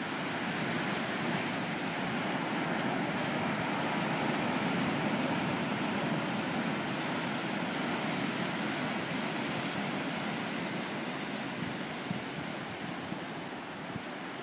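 Ocean surf: waves breaking and washing in over dark rocks onto the beach, a steady rush that builds to its loudest a few seconds in and eases off toward the end.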